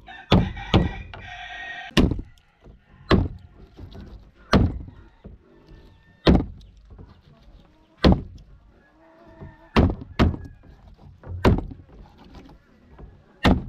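Large knife chopping through a whole grouper on a plastic cutting board: about ten heavy chops, irregularly spaced a second or two apart.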